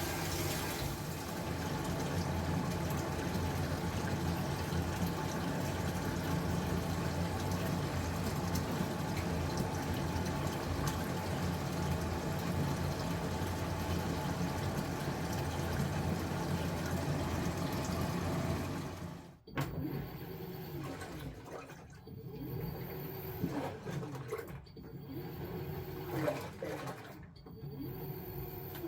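LG T16MU top-loading washing machine filling its tub with a steady rush of water and a low hum; about two-thirds of the way through this stops abruptly and the washer's motor starts driving the wash in repeated strokes, its pitch rising and falling about every two seconds as water sloshes.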